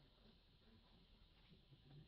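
Near silence: only faint background noise.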